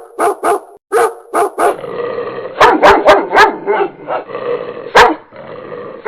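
A dog barking repeatedly: a quick run of short, sharp barks, then from about two seconds in a duller recording with more barks.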